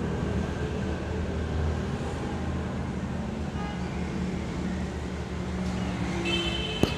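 A steady low engine rumble, with a single sharp click near the end.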